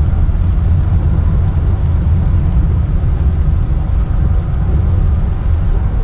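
Steady low rumble inside a moving car's cabin: engine and tyre noise on a rain-soaked road, with a hiss of road spray.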